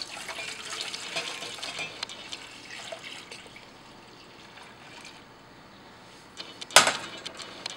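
Warm milk poured from a saucepan into a stainless steel bowl: a steady pouring splash that fades after about three seconds. A single sharp knock near the end.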